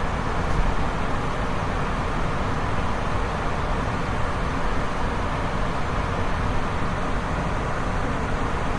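Waterfall's steady rush of falling water: a constant, even noise, heaviest in the deep range, without a break.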